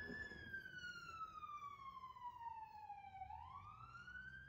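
Faint wailing siren: the pitch falls slowly for about three seconds, then sweeps quickly back up near the end, one cycle of a repeating wail.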